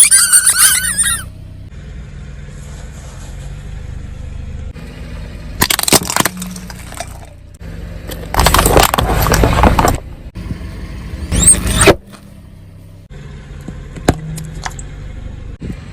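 A car's engine running low underneath, while objects are crushed under its wheels: several loud crunching, breaking bursts. There is one near the start with a squeaky, wavering squeal, others at about six seconds and from about eight to ten seconds, one more just before twelve seconds, and a couple of sharp cracks near fourteen seconds.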